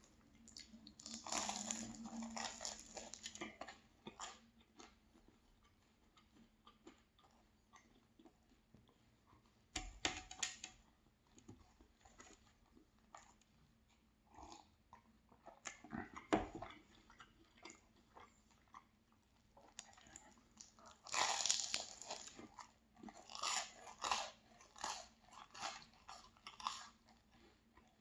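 Person biting into and chewing a crisp, flaky pastry close to the microphone. Crunches come in scattered bursts, with a denser run of crunchy chews near the end.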